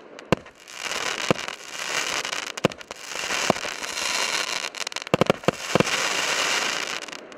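Consumer firework battery (cake) firing its last shots: sharp bangs of the shells going up and bursting, a quick cluster of reports about five seconds in, and dense crackling from the crackle-effect stars between them. It dies away at the end as the battery finishes.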